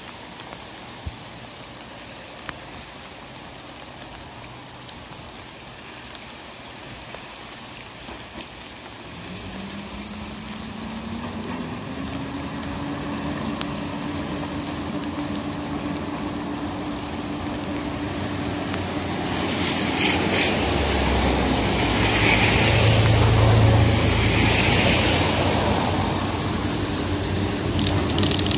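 Steady rain hiss, then a KiHa 52 and KiHa 28 diesel railcar train with DMH17 diesel engines approaching. About nine seconds in its engine note rises in pitch and then holds steady. The train grows steadily louder, and near the end comes a deep rumble with a few clicks and some high-pitched squealing.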